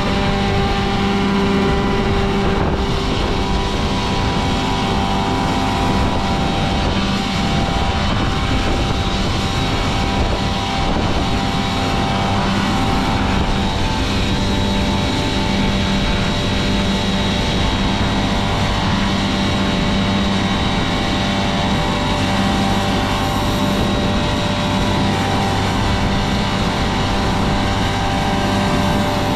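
Machinery running steadily at a constant speed, a loud even engine-like drone with a fixed pitch.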